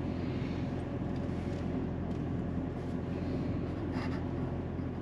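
Toyota Camry driving slowly, heard from inside the cabin: a steady low engine and road hum.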